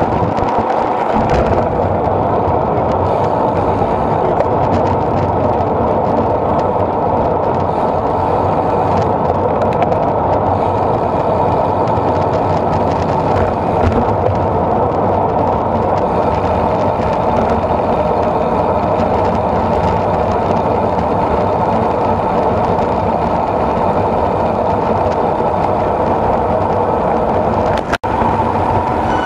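Steady wind rushing over the microphone of a bike-mounted camera, with road noise from a group of road bicycles riding at pace. It drops out for a moment near the end.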